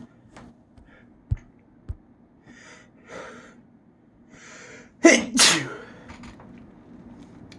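A person's sneeze: a few sharp in-breaths building up, then one big, loud sneeze about five seconds in. Two dull thumps sound in the first two seconds.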